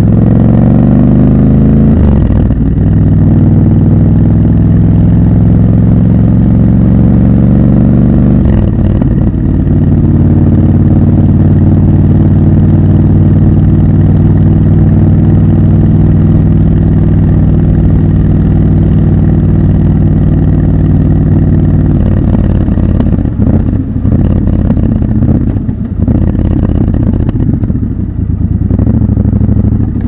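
Triumph Scrambler 1200 XC's 1200 cc parallel-twin engine under way. It pulls away with its note rising, shifts gear about two and nine seconds in, then holds a steady note at constant speed. In the last third the throttle is eased and the engine note goes lower and uneven.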